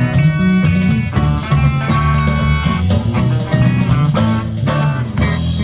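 Live band playing an instrumental passage: electric lead guitar over bass guitar, acoustic guitar and a drum kit.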